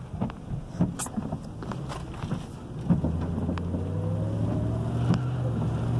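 Knocks and rustles from a phone being handled inside a car. About three seconds in, after a louder knock, a steady low hum sets in, with a faint whine that rises in pitch for a couple of seconds.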